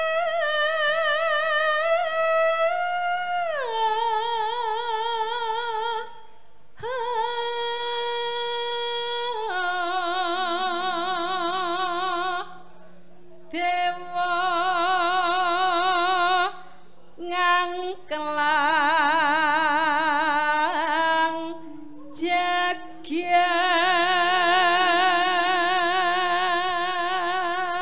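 A female Javanese sinden singing solo in long held phrases with a wide, fast vibrato, pausing briefly between phrases. A faint steady low tone sits beneath the voice.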